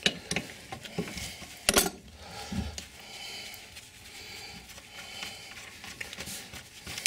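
A few sharp metallic clinks in the first two seconds as an adjustable wrench works the nut on a toilet's floor bolt, then quieter scraping as the nut is turned off the bolt threads by hand.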